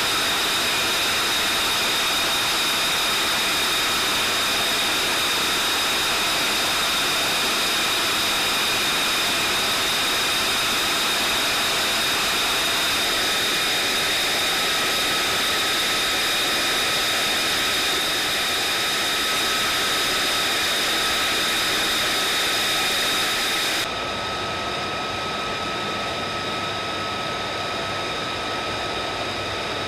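F-35B Lightning II's jet engine running at idle: a steady high-pitched turbine whine over a loud rush of air. About 24 s in, the sound drops slightly and turns a little duller, while the steady whine carries on.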